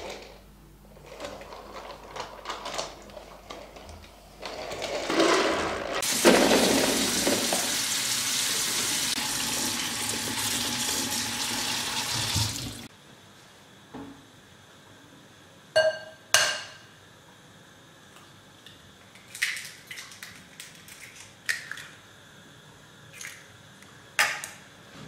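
Tap water running steadily onto blueberries in a plastic colander for about seven seconds, then shut off abruptly. After that come a few sharp clinks and knocks, with quiet between them.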